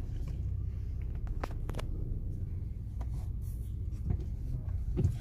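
Car engine idling with a steady low hum, with a few light clicks and rubbing sounds over it.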